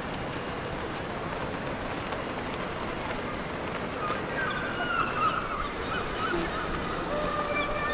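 Steady rushing outdoor background of wind and water. From about four seconds in, faint high wavering calls can be heard over it.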